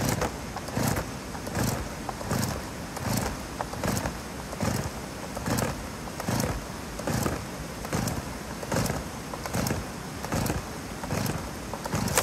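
Two-stroke chainsaw's recoil starter being pulled over and over, about fifteen quick rasping pulls a little more than one a second. The engine does not catch.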